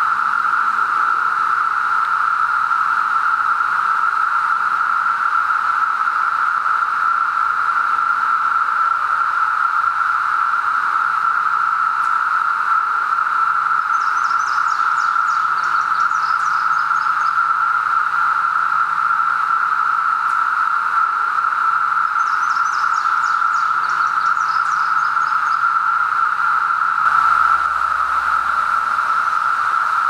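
Dense chorus of 17-year periodical cicadas (Brood XIII): a constant loud hum held at one steady pitch. Faint high trills come through twice over it, and there is a brief low rumble near the end.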